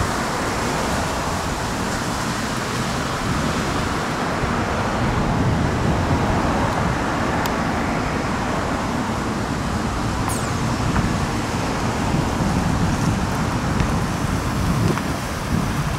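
Steady road traffic noise: a continuous low rumble of passing vehicles with no distinct events.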